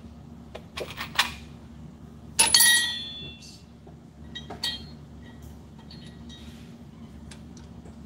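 Small metal parts clinking as they are handled, with one loud ringing metal clatter about two and a half seconds in, the sound of a piece of hardware being dropped, followed by a few lighter clinks.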